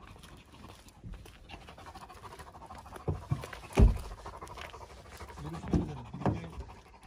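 Dogs panting, with a few sudden thumps; the loudest thump comes about four seconds in.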